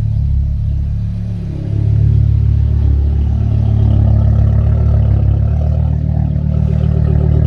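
Audi RS3's 2.5-litre five-cylinder engine running at idle through its exhaust, steady and deep. About two seconds in the exhaust note steps up louder and fuller, as the exhaust flaps open in dynamic mode.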